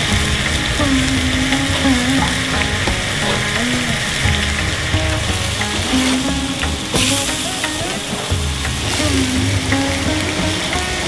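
Yak-meat burger patties sizzling on a hot grill grate in a steady hiss, with a brief louder hiss about seven seconds in. A melody plays faintly underneath.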